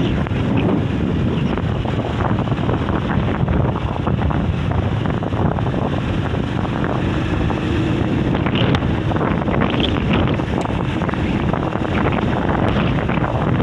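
Very strong wind buffeting the microphone in a loud, steady rumble, the kind of gale that lifts beach sand into a sandstorm.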